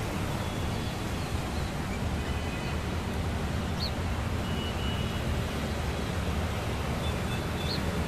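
Steady outdoor rumble and hiss, heaviest in the low end, with a few faint short high-pitched bird calls: one a little under four seconds in and one near the end.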